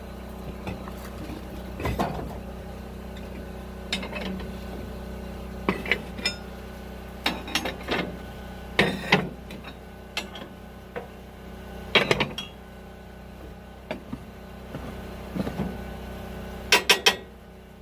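Metal tool clanking and scraping inside a wood stove's firebox as the ashes are knocked down and cleaned out: irregular metallic clinks and knocks, the loudest a few seconds apart, with a cluster of sharp clanks near the end.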